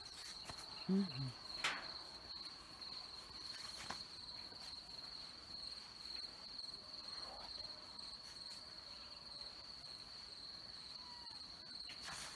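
Crickets keeping up one steady, high-pitched trill, with a brief murmur of a voice about a second in and a few faint clicks.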